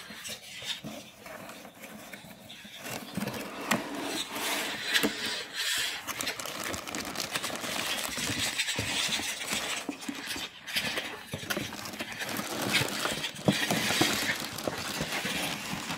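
Thin plastic packaging bags crinkling and rustling as plastic-wrapped toys are handled and pulled out of a box. The crinkling is sparse for the first couple of seconds, then dense and continuous.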